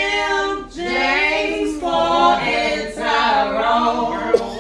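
Voices singing unaccompanied in long held notes, phrase after phrase, with a brief break about three-quarters of a second in.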